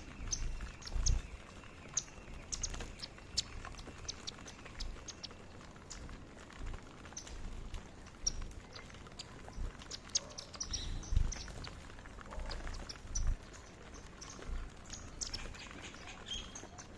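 Indian silverbills giving many short, high chirps while feeding on foxtail millet, with a few low thumps mixed in.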